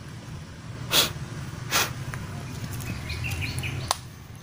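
Two sharp smacks, about one and just under two seconds in, then faint high bird chirps over a steady low hum.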